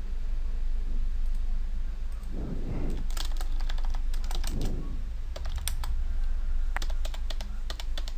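Typing on a computer keyboard: keystrokes in short quick runs starting about three seconds in, as login details and a PIN are entered, over a steady low hum.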